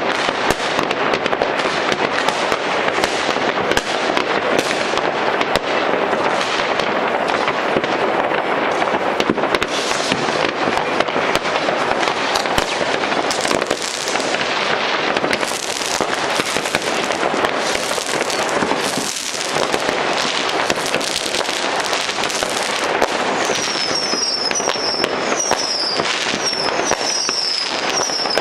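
Masses of New Year's Eve fireworks going off across a city at once: rockets and firecrackers popping and crackling in a dense, unbroken barrage. A short high chirp repeats several times a second near the end.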